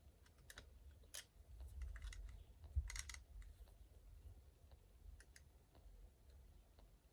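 Faint, scattered small clicks and taps of the Canon AE-1 Program SLR being handled as its focusing screen is refitted, with a little cluster of clicks about three seconds in.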